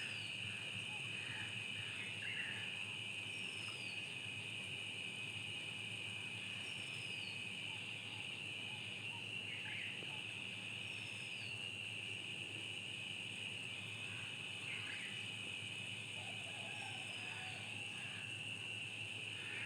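Steady high-pitched insect chorus, with a bird's short falling whistle repeated about five times, a few seconds apart.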